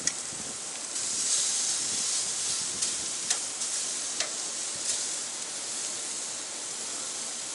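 Steaks and oiled asparagus sizzling on the hot grate of a Masterbuilt 560 charcoal grill at about 570 degrees, a steady hiss that swells for a couple of seconds near the start. Several sharp clicks of tongs on the grate as the spears are laid down.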